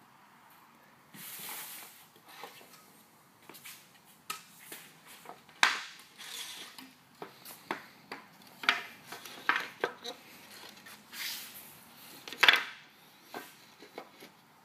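Wooden boards knocking and clattering against each other and the concrete floor as they are handled and set in place, with irregular sharp knocks and a couple of brief scraping sounds.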